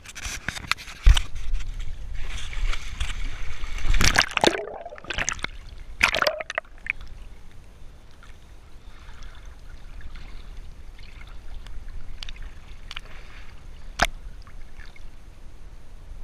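Pool water splashing and sloshing right against a camera held at the water's surface, with gurgling, heaviest in the first six or seven seconds. After that it settles to gentle lapping with an occasional small splash or knock.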